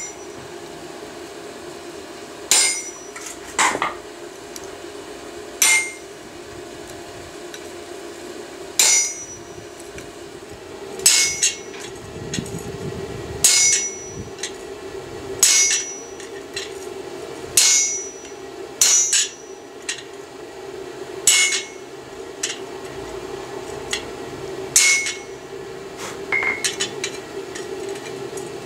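Hand hammer striking a chisel held on a steel bar on the anvil: about a dozen single ringing blows, roughly two seconds apart, over a steady hum.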